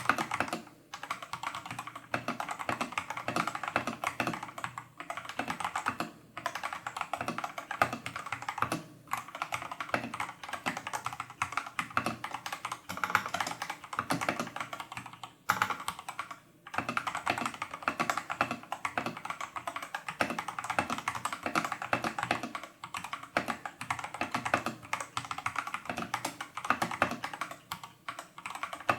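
Fast, continuous typing on a Tester68 mechanical keyboard with factory-lubed Holy Panda clone tactile switches and XDA-profile keycaps. Rapid key clacks come with a few short pauses.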